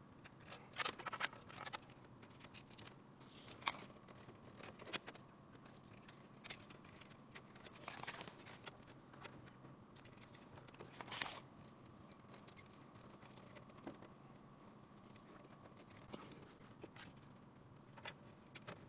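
Scattered light clicks, taps and brief rustles, irregularly spaced, over a faint steady hum: hands handling and fitting computer parts during a PC build.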